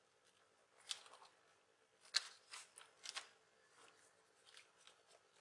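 Faint, scattered clicks and scrapes of a laptop hard drive in its rubber shock-absorbing casing being handled and pressed into the laptop's plastic drive bay, the sharpest click about two seconds in.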